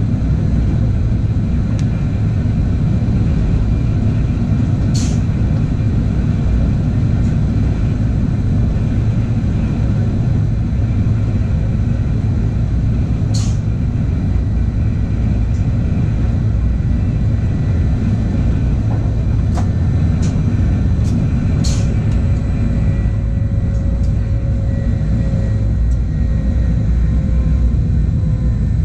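Steady low rumble of a regional train running along the line, heard from inside the driver's cab, with a few sharp clicks through it. A faint whine slowly drops in pitch over the last several seconds.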